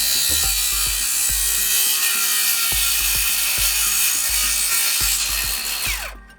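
Power saw running steadily through a cut, then its motor switching off and winding down with a falling whine near the end.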